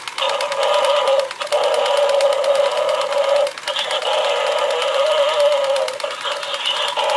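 Battery-powered animated Halloween skeleton pet toy playing a tinny electronic sound through its small speaker: a wavering, held tone in phrases broken by short gaps. Underneath runs the fast, fine clicking of its geared motor as it moves.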